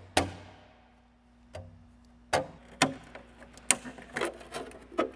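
Irregular sharp metallic clicks and taps, about eight to ten of them, from hand-tool work on the cut aluminium wing skin of a Cessna 401. The first rings on briefly.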